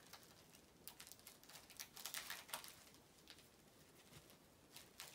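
Faint, scattered rustling and light ticks of glossy paper being handled and leafed through by hand.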